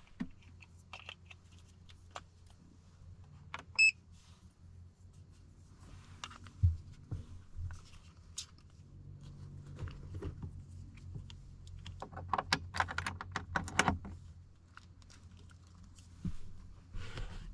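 Scattered clicks and rattles of small objects being handled, with a dense burst of rattling about twelve seconds in. A short electronic beep comes about four seconds in. A low steady hum runs underneath.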